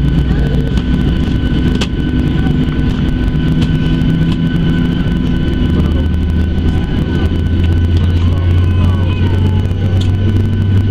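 Cabin noise of a Boeing 737-700 taxiing on its CFM56-7B jet engines: a steady low rumble with a constant high whine, the low hum growing louder about six seconds in.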